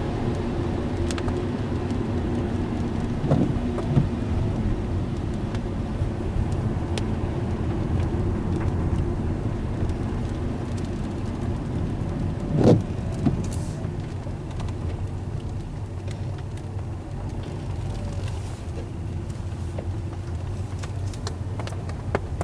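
Car driving on a wet road, heard from inside the cabin: steady engine and tyre rumble with road noise from the wet surface. A few thumps break through, the loudest a little past halfway.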